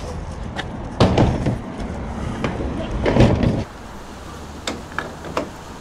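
Hollow knocks and clunks of a plastic car roof box being handled and fitted onto the roof bars, two heavier knocks about a second in and about three seconds in, then a few lighter clicks near the end.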